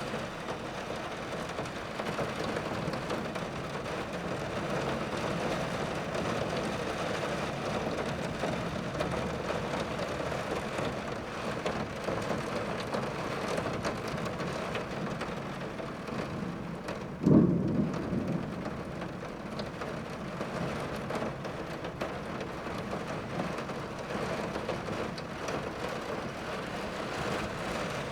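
Steady heavy rain drumming on a tin roof. About seventeen seconds in, a single sudden thunderclap is the loudest moment and dies away over about a second.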